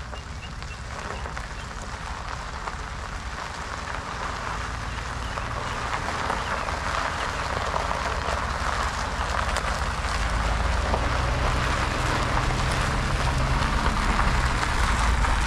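GMC pickup truck towing a tandem-axle enclosed cargo trailer along a gravel driveway: tyres crunching on the gravel over a low engine rumble, growing steadily louder as it comes up and passes, loudest near the end.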